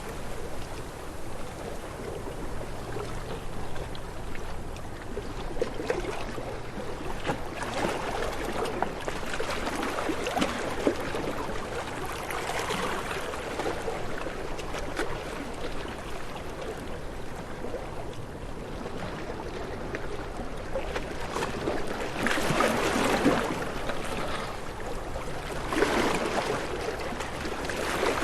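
Small water waves lapping and washing, swelling up irregularly every few seconds.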